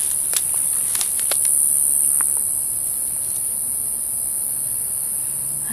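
Steady, high-pitched chorus of night insects, with a few brief crackles of dry weed stalks being pushed through in the first couple of seconds.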